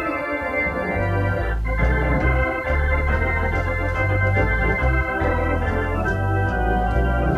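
Organ playing held chords over a bass line that changes every second or so.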